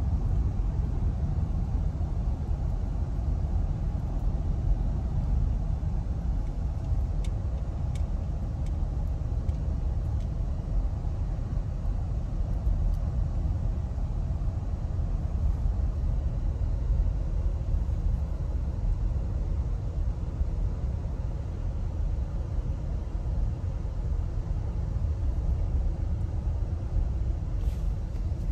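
Steady low rumble of road noise inside a moving car's cabin, with a few faint clicks.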